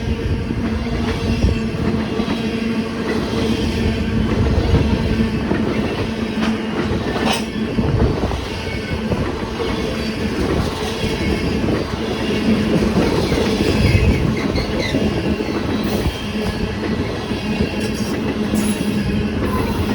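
Train rolling past close by: wheels running over the rails with a steady hum underneath, continuing without a break. Gusts of wind buffet the microphone.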